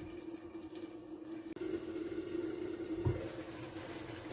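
Tomato sauce simmering in a covered clay tagine on a gas hob: faint bubbling over a steady low hum, with one soft thump about three seconds in.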